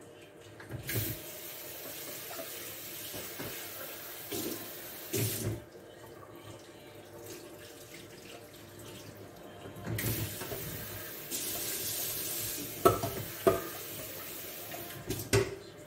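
Kitchen tap running into a sink in two spells of a few seconds each, with a few sharp knocks near the end.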